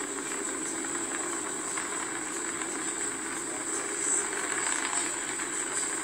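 Falcon 9 Block 5 first stage firing its nine Merlin engines during ascent, a steady unbroken rocket noise carried on the launch webcast audio, with a constant high hiss over it.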